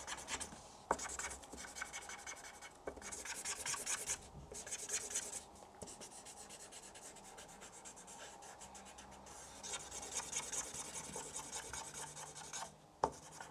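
Felt-tip marker scribbling back and forth on paper as a picture is coloured in: quick, rasping strokes in stretches with short pauses, and a couple of sharp clicks.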